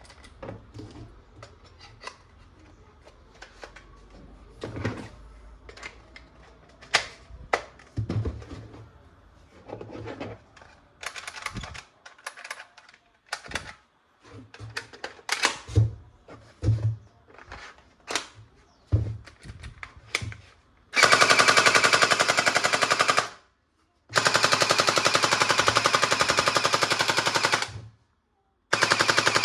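Plastic clicks and knocks of a toy gun being handled, then a battery-powered toy machine gun's electronic rapid-fire sound effect in three long bursts, the first about two seconds, the second about four, the last starting near the end.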